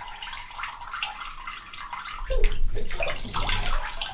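Water and loose jelly sloshing and splashing in a bathtub as a head is dunked into the Jell-O bath, with many small wet crackles and a louder, fuller stretch from about two seconds in.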